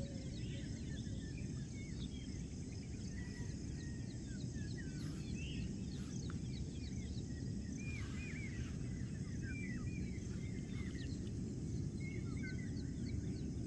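Early-morning birdsong: many short chirps and whistled calls from several birds, over a steady low background rumble.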